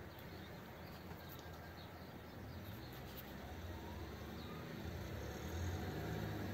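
Faint background ambience with a few small, high bird chirps. A low rumble swells near the end.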